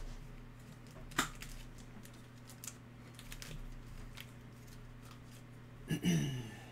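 Foil trading-card packs handled and slid out of a stack, with light clicks and rustles and a sharper knock about a second in. Near the end, a man clears his throat.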